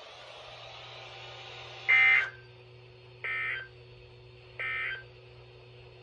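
NOAA Weather Radio broadcast closing with three short bursts of SAME data tones, the end-of-message code that follows a warning: each a brief two-pitched electronic warble near 2 kHz, about 1.3 s apart, the first much louder than the other two. A faint hiss of dead air comes before the first burst.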